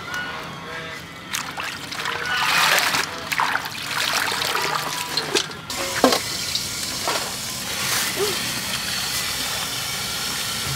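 Water from a garden tap running and splashing into a steel bowl as leafy greens are rinsed. The first half has irregular splashes; from about halfway it settles into a steady pour.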